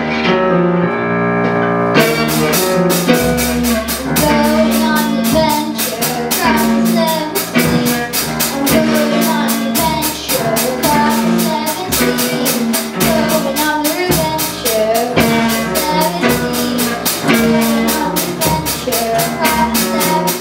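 A children's rock band playing live: electric guitar, acoustic guitars and drum kit, with a girl singing into a microphone. It opens on held guitar chords, then the drums and cymbals come in about two seconds in with a steady beat under the sung melody.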